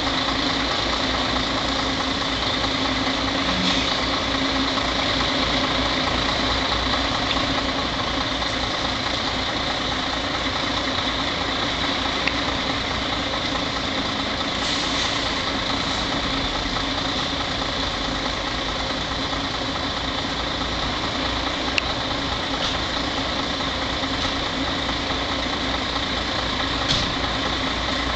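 Heavy MAN truck's diesel engine idling, a steady even rumble with no revving, with a few faint ticks.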